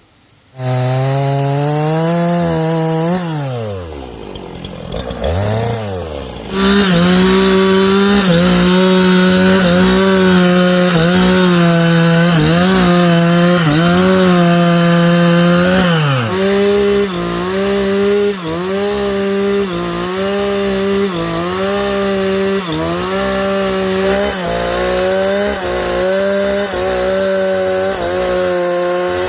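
Two-stroke chainsaw cutting through a large log: the engine runs at high revs, drops back toward idle a few seconds in, then comes back up to full throttle and holds steady. In the second half the pitch dips and recovers about once a second as the chain bogs under load in the cut.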